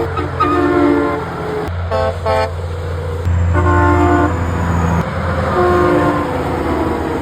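Truck horns honking over the low rumble of passing lorry engines: a long blast near the start, two short blasts about two seconds in, then two more longer blasts.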